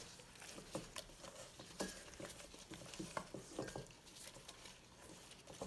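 Gloved hands handling a whole soy-marinated raw chicken in a stainless-steel bowl: faint, irregular soft squelches and small ticks.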